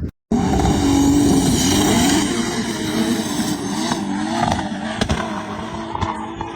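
An off-road vehicle's engine running hard, its pitch rising and falling as the throttle is worked. It cuts in abruptly just after the start and fades toward the end.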